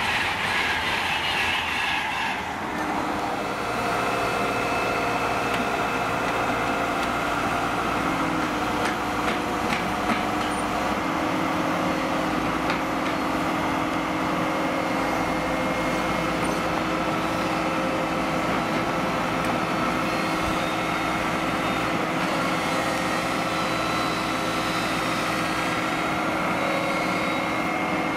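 An electric passenger train rushes past and fades within the first couple of seconds. After that the diesel engines of road-rail excavators run steadily at idle, with a steady whine. A few light clicks come around ten seconds in.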